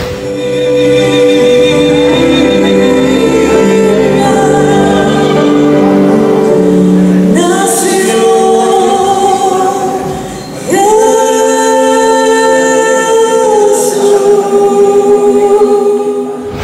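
Symphony orchestra with singers performing a slow piece in long held chords. The chord glides up to a higher pitch twice, about halfway through and again about two-thirds of the way.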